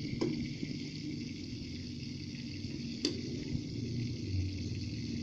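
Hot dogs frying in oil in a pan, a steady light sizzle. Two sharp clicks cut through it, one just after the start and one about three seconds in.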